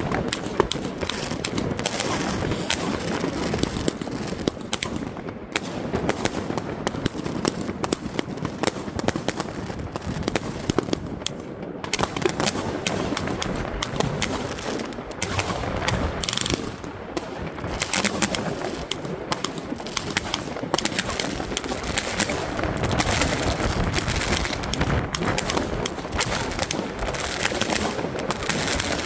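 An 80-shot Orange Dragon firework cake firing, a fast, unbroken string of launches and bangs that keeps up throughout.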